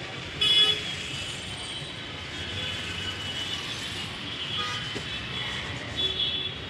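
Road traffic running steadily, with a short loud vehicle-horn honk about half a second in and another shorter honk near the end.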